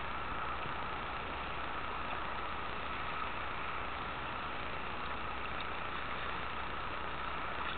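Engine of a small motor craft running steadily on the sea, an even drone with a constant hiss over it.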